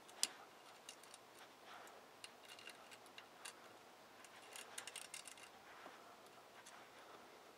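Faint, irregular light clicks and scrapes of a thin metal pick working in the freshly tapped threads of a cast exhaust manifold, picking out leftover debris.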